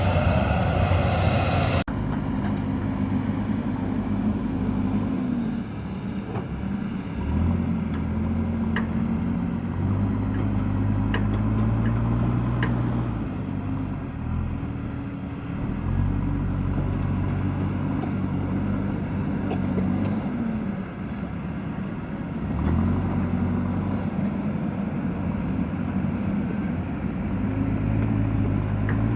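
Backhoe loader's diesel engine working, revving up and dropping back again and again every few seconds. A few faint clicks and knocks come through. The first two seconds hold a brighter, noisier engine sound that cuts off abruptly.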